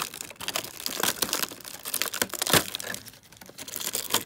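Clear plastic doll packaging, a rigid blister tray and a small bag holding doll shoes, crinkling and crackling as it is handled. It is a quick run of small crackles, the loudest about two and a half seconds in.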